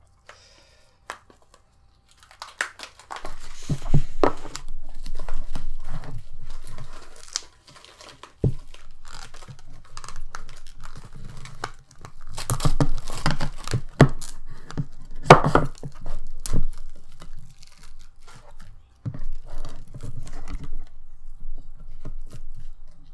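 Plastic cling wrap being torn and peeled off food dishes and crumpled, in irregular crackling stretches with short pauses. It starts about two and a half seconds in.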